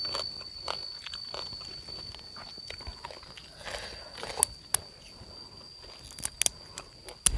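Crunchy chewing at the start, then a fresh green vegetable stalk being torn and stripped by hand, with a tearing rasp about halfway through and several sharp snaps after it. A steady high-pitched tone runs underneath.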